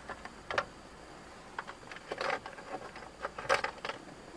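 Irregular sharp clicks and light knocks inside a car's cabin, a dozen or so, the loudest about two and three and a half seconds in, over faint steady cabin noise.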